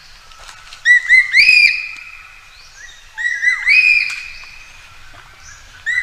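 A magpie calling in two phrases of ringing whistled notes, about two seconds apart. Each phrase has about three notes, and the last note is the longest.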